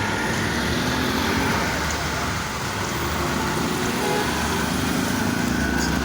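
Steady road-vehicle noise: a motor vehicle's engine running under a constant rushing hiss.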